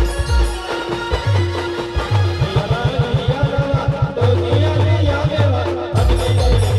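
Adivasi band playing a rodali dance tune: a heavy drum beat under a sustained melody line, with a fast run of drum strokes about halfway through and a brief break in the drums near the end before the beat comes back.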